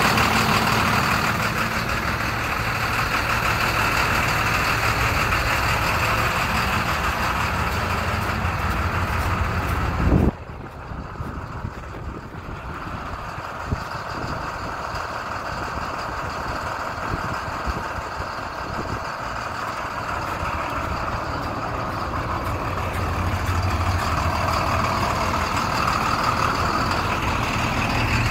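IC Bus school bus engine idling steadily. About ten seconds in there is a brief knock and the engine sound becomes noticeably quieter, then slowly grows louder again.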